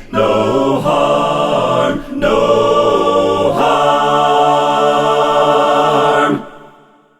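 Multi-tracked a cappella vocal ensemble singing the final short phrases of a gospel song, ending on one long held chord that cuts off about six seconds in and dies away in reverb.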